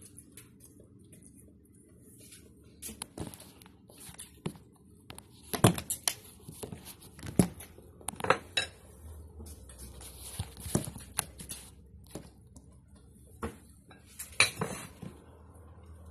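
Chopsticks clinking and tapping against a porcelain bowl while noodles are picked up, in irregular sharp clicks, the loudest about a third of the way in and again near the end.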